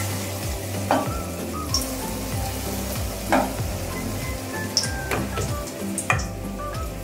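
Batter-coated topse fish deep-frying in hot oil in a kadai: a steady sizzle with several sharp pops of spattering oil.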